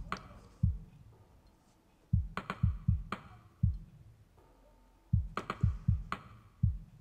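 Drum loop from a Synthstrom Deluge drum kit: short groups of five or six bass-drum hits that fall in pitch, with sharp clicky percussion on top, repeating about every three seconds with near-quiet between. A bitcrusher is on the kit.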